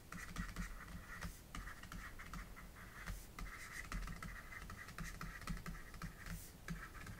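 Pen stylus writing on a tablet: faint scratching strokes with small taps, stopping and starting as words are handwritten.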